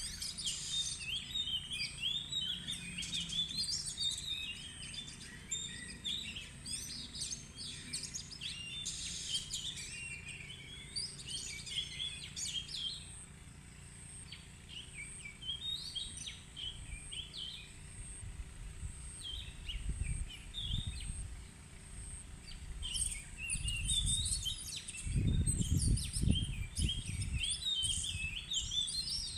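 Oriental magpie-robin singing a long, varied series of short whistled phrases with brief pauses, a song rich in variations. Low rumbles come in twice in the second half, the louder one a little past two-thirds of the way through.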